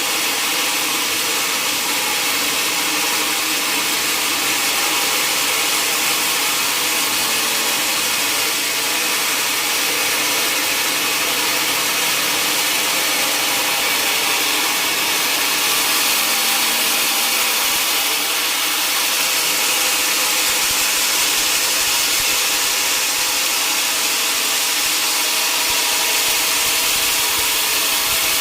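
Sawmill saw cutting steadily through a mahogany log: an unbroken hiss of the blade in the wood over a faint machine hum.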